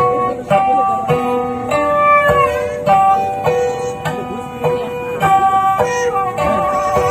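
Traditional Sundanese string music, as in a tarawangsa ensemble: plucked string notes struck at a steady pace of a little under two a second over held tones. One held note slides down in pitch about two seconds in, and another wavers near the end.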